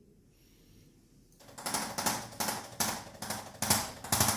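Near silence for about a second and a half, then a rapid, even run of sharp clicks or taps, about five a second.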